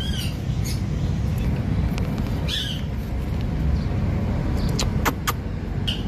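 Rose-ringed parakeet giving a few short squawks, the loudest one about two and a half seconds in and falling in pitch, over a steady low rumble. A few sharp clicks come near the end.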